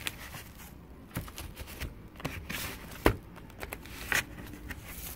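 Handling noise as an iPad is picked up, turned over and set down: scattered light taps and clicks with faint rustling, and one sharper knock about three seconds in.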